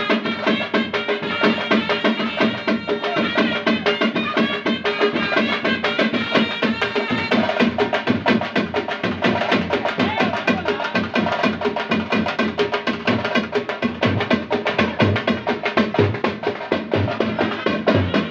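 Music with fast, steady drumming and a melody line over it.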